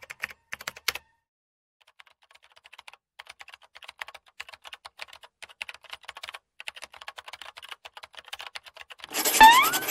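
Kitchen knife chopping paneer into cubes on a clear plastic tray: a quick run of light taps as the blade meets the tray. Near the end a loud swoosh with a rising tone cuts in.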